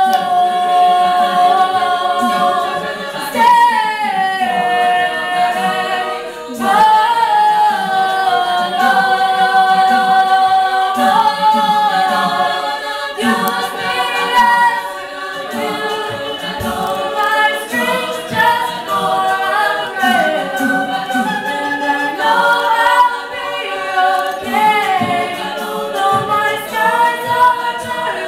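All-female a cappella group singing without instruments: a lead voice carries the melody over sustained harmonies from the backing singers.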